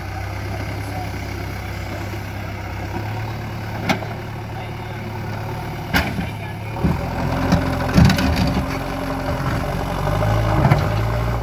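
JCB 3DX backhoe loader's diesel engine running at a steady idle, with two sharp knocks about four and six seconds in. About two-thirds of the way through the engine works harder and the sound grows louder and busier, with clattering knocks.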